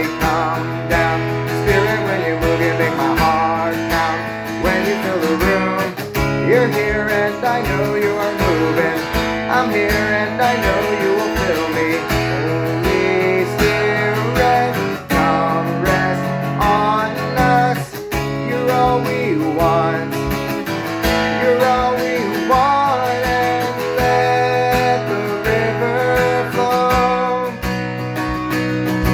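Worship band playing an instrumental passage of a song in E: strummed acoustic guitar with melodic lines over a steady beat.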